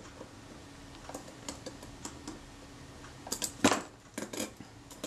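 Faint small metallic clicks and taps of a small screwdriver tightening the case screws of a Synchro-Compur leaf shutter, with a louder short clatter about three and a half seconds in as the shutter is handled and lifted off the wooden block.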